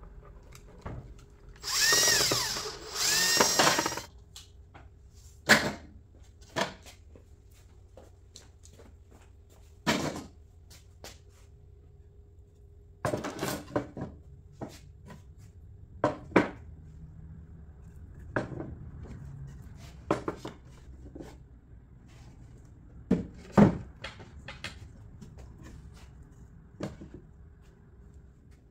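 Milwaukee M18 cordless drill/driver running into the corner of a wooden box in two short bursts, its motor whine rising and falling. After that come scattered sharp knocks and clunks of wooden parts being handled.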